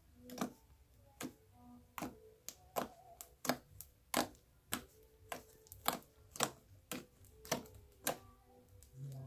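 Thick bubblegum slime being poked and squeezed by hand, giving a run of sharp wet pops and clicks about every half second, a dozen or more in all.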